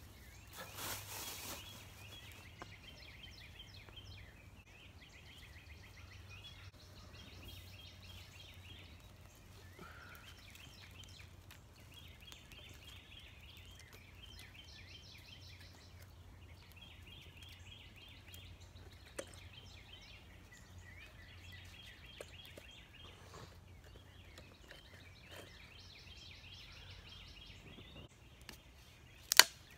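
Faint outdoor ambience of small animals calling: short trains of high, rapid chirps repeating every second or two. A few faint ticks, and one sharp loud crack near the end.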